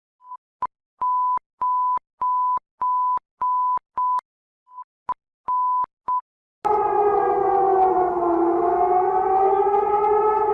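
Emergency alert alarm tones: a string of short electronic beeps at one steady pitch, with a brief gap after about four seconds. About two-thirds in, a vocoded alarm starts abruptly, a dense chord of several notes that sags slightly in pitch and rises again.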